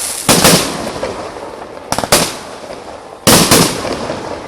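Aerial fireworks going off: three loud bangs about a second and a half apart, each trailing off in a brief rumble.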